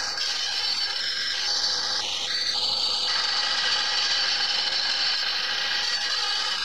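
Wood lathe spinning a long wooden blank while a hand-held turning tool cuts into it: a steady hissing scrape of the tool shaving the wood, with a few brief faint squeals in the first three seconds. This is the roughing stage, taking the faceted blank down to round.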